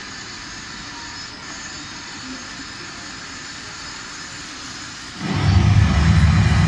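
Steady background noise, then about five seconds in a loud, low jet-engine rumble starts suddenly: the Concorde takeoff sound effect played over the model airport's loudspeakers as the model aircraft begins its takeoff run.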